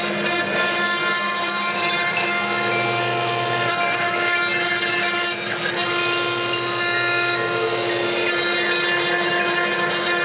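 A 6090 CNC router's spindle running with a steady high whine as its small ball-nose bit carves a 3D relief into MDF.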